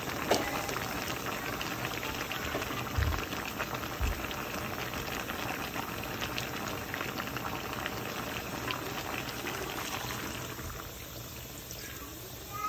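Pot of beef, green beans and potatoes simmering at a boil: a steady bubbling hiss full of small pops and crackles, easing slightly near the end. Two dull low bumps come about three and four seconds in.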